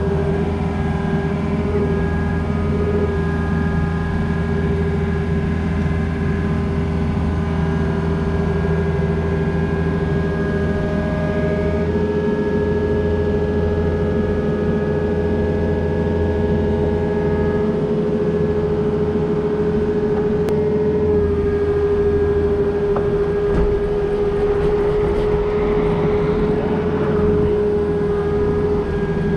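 Takeuchi excavator's diesel engine running steadily at working speed, with a steady high tone over the engine hum while it lifts and swings a length of pipe on a chain.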